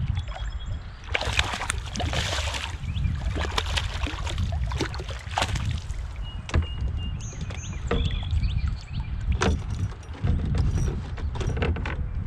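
A hooked smallmouth bass splashing at the surface beside a kayak and being scooped into a landing net, with water streaming off the net. There is a burst of splashing a second or two in, short splashes and knocks after it, and a steady low rumble underneath.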